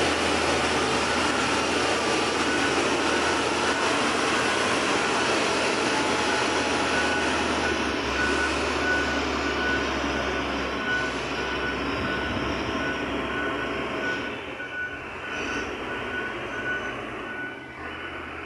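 Motor grader's diesel engine running steadily under load, with its backup alarm beeping at an even pace. The sound grows fainter over the last few seconds.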